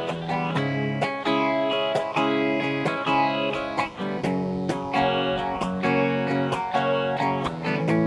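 Guitar strumming chords, an instrumental stretch between sung lines, the chord changing every second or so.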